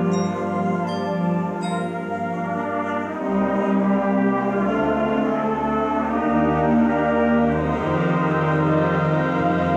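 Symphonic band of woodwinds and brass playing full, sustained chords that change every second or two.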